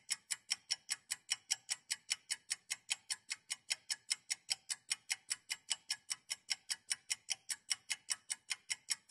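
Rapid, evenly spaced ticking like a fast clock, about five sharp, bright ticks a second.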